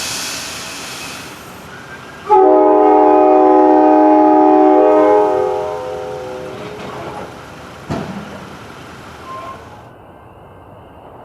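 A Leslie K5LA five-chime air horn on a SEPTA electric train sounds one long, loud chord of about three seconds, a couple of seconds in, then dies away. Before it, a rushing noise fades out, and there is a single sharp knock near the end.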